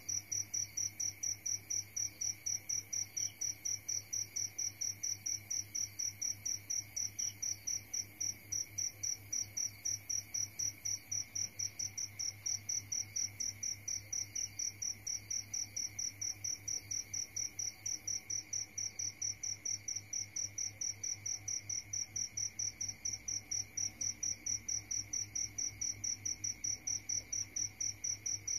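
A cricket chirping steadily, a high pulsing note repeated about three to four times a second without a break, over a faint steady low hum.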